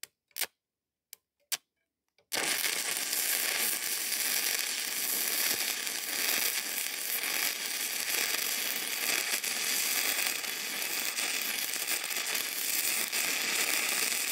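Stick (SMAW) welding arc on steel: a few short pops, then about two seconds in the arc catches and crackles steadily for some twelve seconds before cutting off abruptly at the end.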